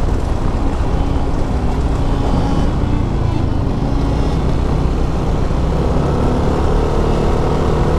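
Yamaha N-MAX 155 scooter's single-cylinder engine running at cruising speed, under a steady low rumble of wind on the microphone. The engine note rises slightly near the end.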